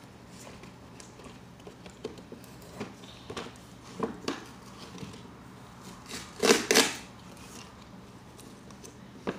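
A cardboard toy box being handled and opened by hand: scattered rustling and scraping of the cardboard. The loudest is a quick pair of sounds about two-thirds of the way through.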